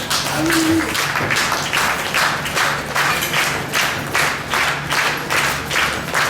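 Wrestling crowd clapping together in a steady rhythm, about two and a half claps a second.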